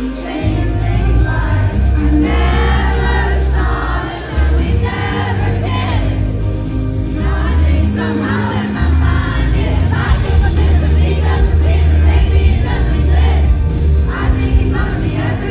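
Live pop concert: a female singer over a band with heavy bass, with many voices, likely the crowd, singing along.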